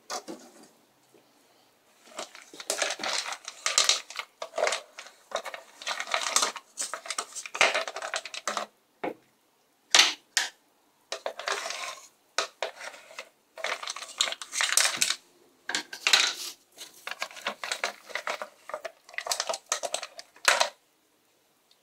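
Wooden spoon scraping and knocking in a metal saucepan, and stones clinking onto a china plate as soup is spooned out, in repeated bursts of clatter with short pauses. A sharp knock about halfway through is the loudest sound.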